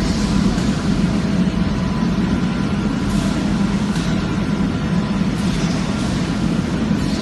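Double-tube powder surface coating machine and its electric drive motors running: a loud, steady machinery drone with faint steady whines above it.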